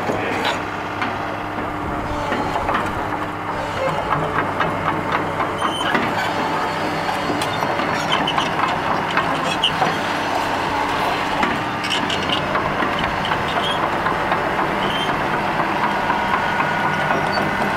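Komatsu PC200LC excavator's diesel engine running steadily, with regular crunching steps on gravel close by, about two a second.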